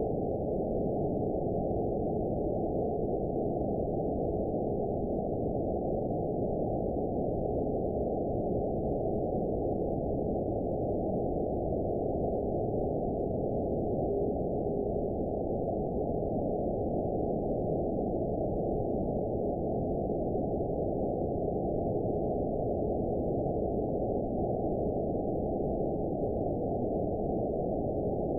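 Radio receiver hiss from an RTL-SDR tuned to the 49.75 MHz TV carrier, sounding muffled with nothing above about 1 kHz, and a faint steady tone in it from the weak distant carrier. There are no strong meteor-echo pings.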